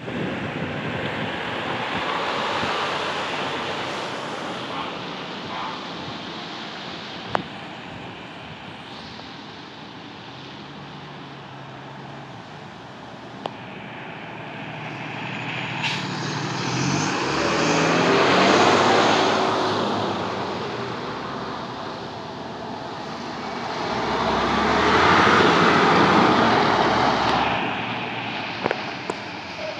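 Fire trucks driving past on a wet road: diesel engines running and tyres hissing on the wet surface. The sound swells and fades twice, loudest about eighteen seconds in and again about twenty-five seconds in.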